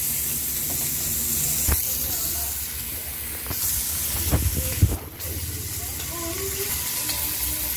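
Pork belly frying in a pan, a steady high sizzling hiss, with a few knocks from the pan or camera being handled, the loudest about five seconds in.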